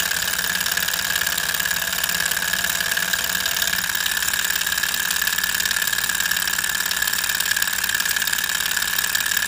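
Sunnytech single-flywheel hot-air Stirling engine, heated by an alcohol lamp, running at about its top speed: a steady, even mechanical whir with a high steady tone over it.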